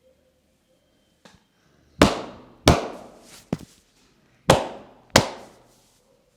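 Loud, sharp hand slaps from an Indian barber's head and body massage, struck in two quick pairs with a fainter slap between them.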